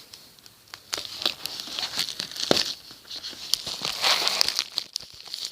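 DVD packaging being opened by hand, crinkling and tearing with quick sharp clicks, starting about a second in.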